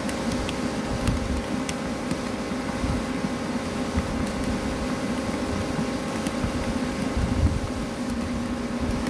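Steady mechanical hum of idling shop machinery, with a few faint clicks as keys on a CNC lathe control panel are pressed.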